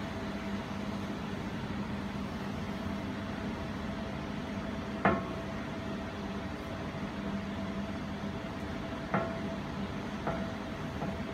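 Jewelry laser welding machine running with a steady hum, with a few sharp clicks: one loud click about halfway through and two fainter ones near the end.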